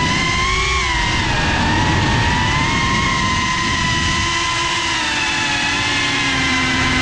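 Brushless motors and ducted propellers of a GEPRC Cinelog 35 FPV cinewhoop, making a steady multi-tone whine whose pitch slowly rises and falls with the throttle, over a rough rush of prop wash and wind.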